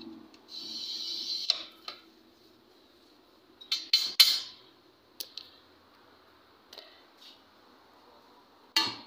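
Glass cutter wheel scoring a thick glass sheet along a straightedge: a scratchy hiss lasting about a second, ending in a click. A few sharp taps on the glass follow about four seconds in, and near the end a single sharp crack as the sheet snaps along the score line.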